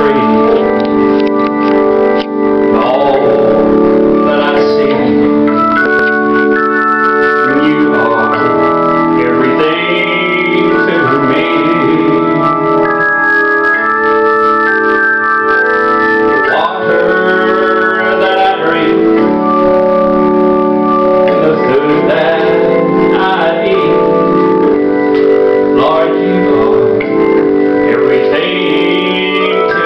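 A man singing a gospel song into a handheld microphone over sustained organ chords, the voice coming in phrases with a wavering pitch.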